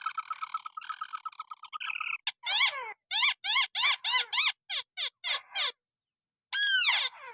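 White-breasted waterhen (ruak-ruak) calling. A rapid stuttering run of harsh notes gives way to a quick series of loud, arched calls that each fall in pitch. After a short silence another loud call comes near the end.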